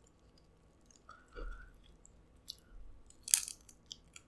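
Close-miked chewing of king crab meat: soft wet mouth clicks, with a louder crackle a little after three seconds in.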